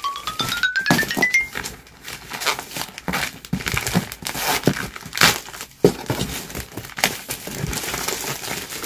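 Plastic mailer and packaging being torn open and handled: irregular crinkling, crackling and tearing of plastic film, with knocks of a cardboard box. A short rising musical tone plays over the first second and a half.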